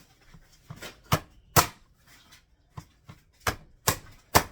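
Kitchen knife chopping tomatoes on a cutting board: about eight sharp knocks, three in the first second and a half, then a pause, then five more.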